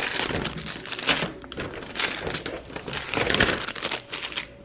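Crinkly packaging rustling and crinkling irregularly as a wrapped item is handled and opened.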